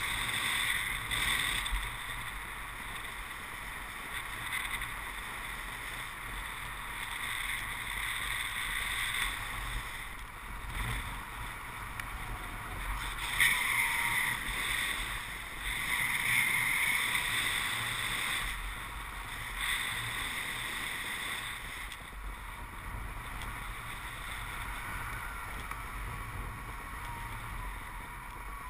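Wind rush of air streaming past the camera microphone in paraglider flight: a steady rushing noise with a low rumble, swelling a little about halfway through.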